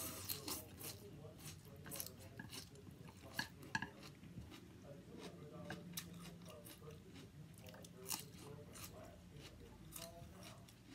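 Faint chewing of a mouthful of rice noodles and bean sprouts, with scattered small clicks and light taps of chopsticks against a plate.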